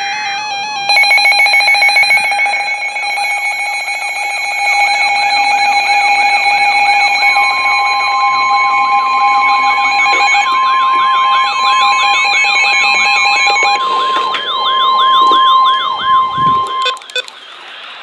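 Emergency alert tones from a weather radio warning: several steady electronic tones layered together, joined by a siren-like warble that rises and falls about twice a second and by a long, single steady alert tone. Most of it cuts off about a second before the end.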